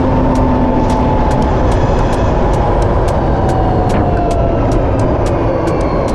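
Riding noise of an electric motorcycle under way: steady wind rush, heaviest in the low end, with faint whining tones that slide slowly down in pitch.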